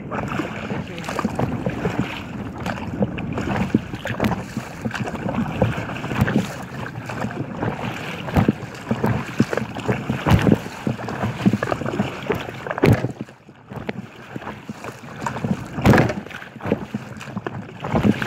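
Wind buffeting the microphone while choppy waves slap and splash irregularly against an inflatable kayak's hull, with a brief lull about two-thirds of the way through.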